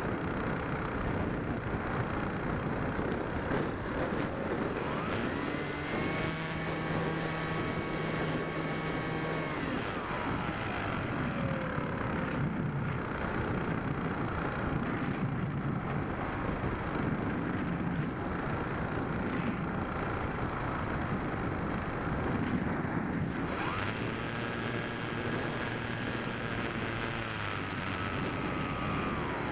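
Bixler foam RC plane in flight, heard from its onboard camera: a steady rush of wind. Its electric motor rises in pitch about five seconds in, holds, and winds down a few seconds later, then throttles up again near the end and falls away.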